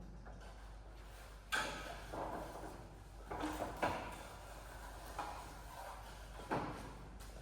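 A few sharp clunks, each followed by scraping, about a second and a half in, again around four seconds and once more near the end.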